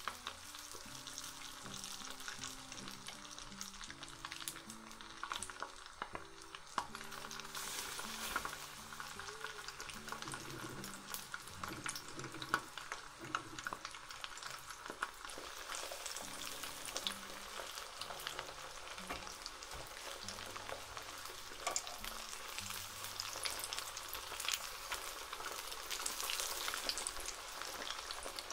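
Starch-coated tofu blocks deep-frying in oil in a frying pan: a steady sizzle full of small crackling pops.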